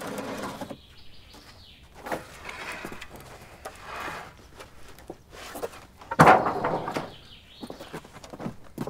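Footsteps and knocks on a corrugated sheet roof as a wooden plank is handled, with one louder clatter about six seconds in. Birds chirp briefly, once near the start and once near the end.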